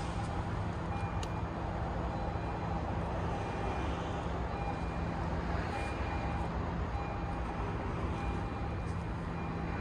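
Steady outdoor background rumble, with a faint short tone repeating about once a second.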